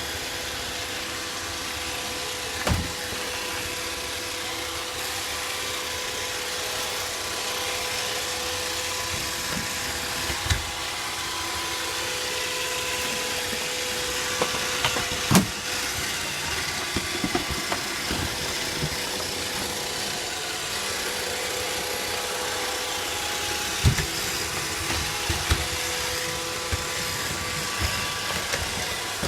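iRobot Roomba robot vacuum cleaner running: a steady whir of its suction motor and brushes with a constant hum, broken by a few sharp knocks.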